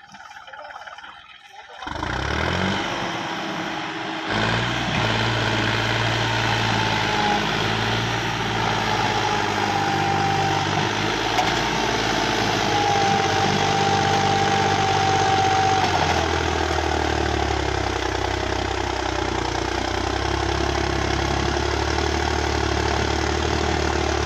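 John Deere 5405 tractor's three-cylinder diesel engine running hard, hitched to a trailer loaded with sugarcane. It comes in loud about two seconds in, and its note shifts about four seconds in and again later on. A thin high whine drifts in pitch over the middle stretch.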